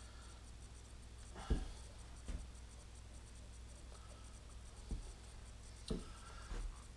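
A handful of short knocks and scrapes as a metal tailstock and a height gauge base are shifted and tapped on a granite surface plate while a test bar is lined up. The sharpest knock comes about one and a half seconds in, and smaller ones follow at irregular intervals.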